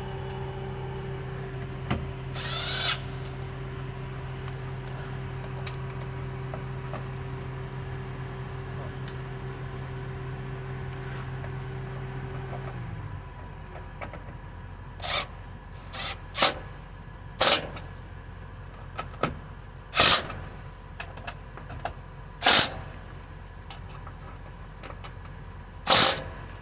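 Hand tools at work on a fuel pump flow control module as it is tightened into place: a short rasp early on, then scattered sharp clicks and knocks at intervals of one to three seconds. A steady machine hum runs underneath and stops about halfway through.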